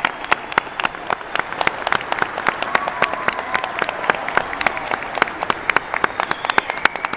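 Crowd applauding, a dense run of hand claps with many sharp individual claps standing out close by.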